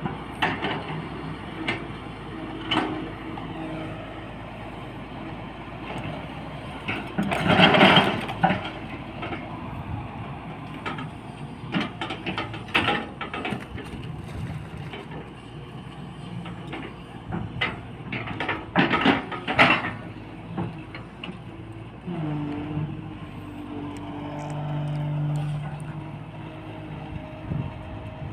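SANY hydraulic excavator working, its engine running steadily with several loud bursts of clanking and clattering, and the engine note swelling for a couple of seconds near the end.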